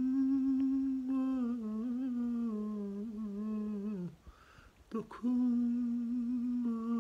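A man singing unaccompanied, holding long wavering vowel notes of a Turkish song in makam hicaz, with a quick breath about four seconds in before he takes up a new held note.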